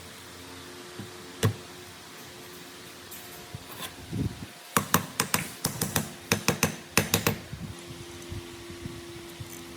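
A quick run of sharp clicks and knocks, about a dozen in three seconds in the middle, with a single click earlier, over a faint steady hum: small parts or hand tools being handled at the workbench.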